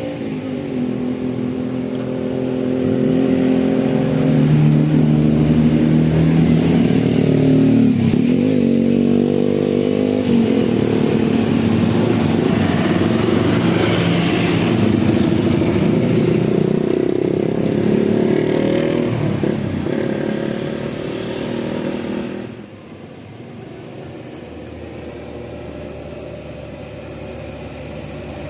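A bus 'telolet' multi-tone horn playing a tune of held notes that step from pitch to pitch. It cuts off about three-quarters of the way through, leaving a quieter, steadier vehicle sound.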